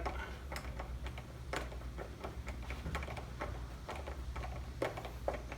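Irregular light clicks and taps as a mounting screw is driven in by hand with a screwdriver, over a steady low background hum.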